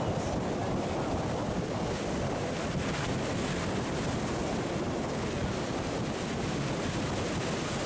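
Sea surf breaking and washing against rocks, a steady rushing noise with wind buffeting the microphone.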